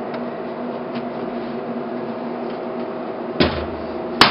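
A steady hum, then near the end a hammer strikes the upper setting die of a hand grommet-setting tool, clinching a large metal curtain grommet into fabric: a dull knock, then a sharp metallic blow.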